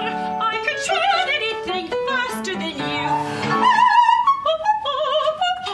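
Operatic soprano singing with strong vibrato over piano accompaniment, climbing to a high held note and then moving through short separate notes near the end.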